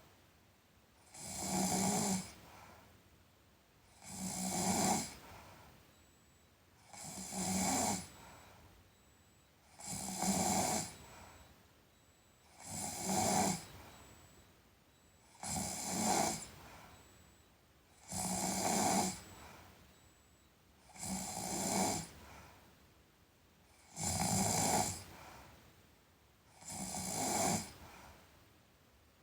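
A sleeping person snoring in a steady rhythm: about ten snores, one every three seconds or so, each lasting about a second and building up before it drops away.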